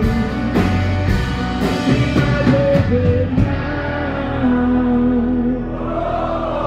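Live rock band playing the closing bars of a song: electric guitar, bass and drums with cymbal hits. The drums stop about three and a half seconds in, leaving held notes ringing.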